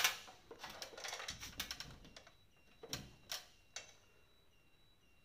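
Small sharp clicks and taps of a plastic butterfly hollow-wall anchor being handled, coming fast in the first two seconds, then three separate clicks about three seconds in.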